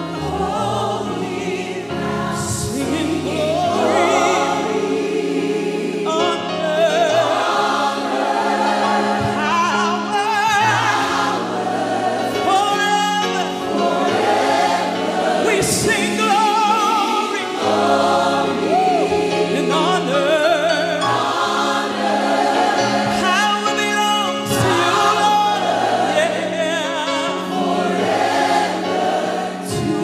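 Gospel choir and lead vocalists singing a worship song with a live band, voices wavering with vibrato over held bass and keyboard chords.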